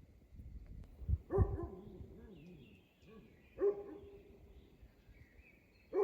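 A dog barking three times, about two seconds apart, with faint bird chirps in between.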